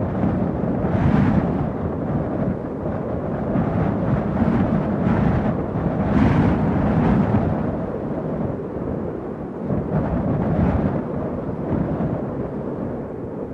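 Strong wind blowing in gusts, a deep rushing rumble that swells with louder gusts about a second in and again around six seconds in, easing slightly near the end.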